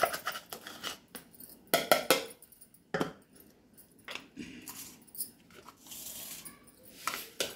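A few sharp metallic clinks and taps of utensils against a stainless steel mixing bowl while spices are added, loudest in a cluster about two seconds in, with a last one near the end.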